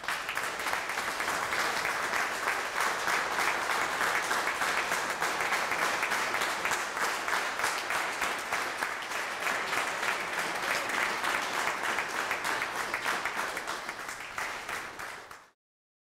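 Applause from a room full of people, a steady dense clatter of many hands clapping, which cuts off suddenly near the end.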